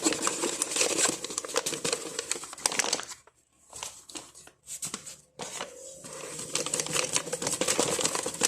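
A packet of flour rustling and crinkling as a kilo of flour is tipped out of it into a dough machine's bowl, in irregular crackly spells with short breaks about three and five seconds in.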